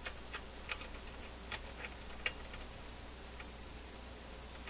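Vacuum-tube PA amplifier humming steadily at a low pitch, with about half a dozen small, irregular clicks as its pilot-light socket is handled. The hum is the fault being hunted, which the owner traces to the pilot-light wiring.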